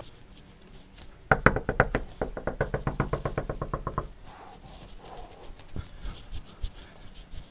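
Rapid knocking on a front door: a quick, even run of about seven knocks a second, starting about a second in and lasting nearly three seconds.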